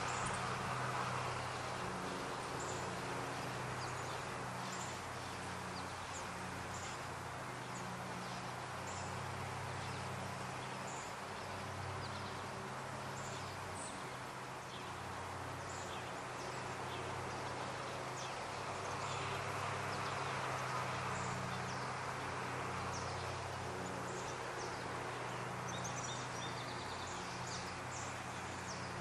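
Outdoor ambience: short high-pitched chirps of small birds scattered throughout, over a steady low droning hum and an even background hiss.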